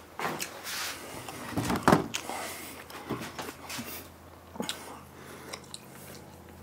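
Scattered knocks, taps and rustles of a video camera being picked up and moved around by hand, with a few sharper clicks about two seconds in.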